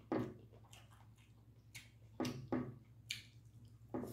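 Mouth sounds of eating barbecue-sauced baked chicken and rice: chewing, with several sharp, wet smacks at irregular intervals.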